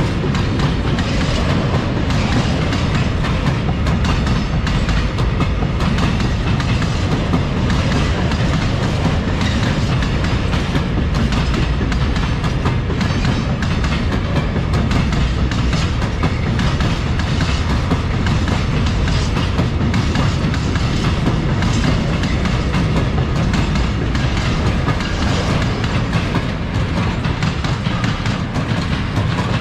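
Freight wagons of a long mixed goods train, open wagons and then flat wagons, rolling past close by: a steady, loud noise of steel wheels on the rails with a continuous clatter over the track, easing slightly near the end.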